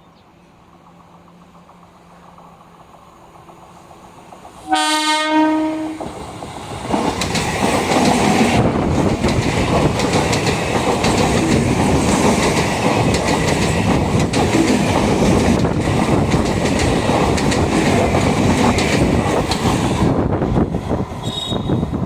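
An approaching train sounds its locomotive horn once, in a single loud blast of about a second and a half. The train then passes at speed close by, with a loud steady rumble and rapid clickety-clack of the wheels over the rail joints.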